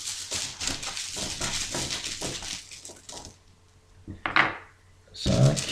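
A handful of six game dice rattling and clicking together as they are drawn from the bag and shaken in the hand, a dense clatter for about three seconds. Two shorter sounds follow, the louder one near the end.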